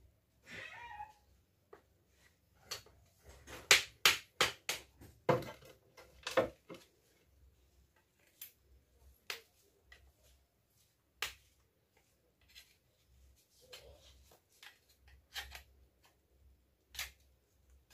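Irregular sharp clicks and taps of a knife blade working against a plastic broom-handle socket, prying and cutting out a stuck stub of wooden handle. A quick run of louder clicks comes a few seconds in, then scattered single ones.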